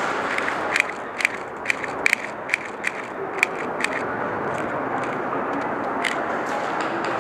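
Airsoft guns firing, a scattered run of about ten sharp pops over a few seconds and one more a couple of seconds later, over a steady background hiss.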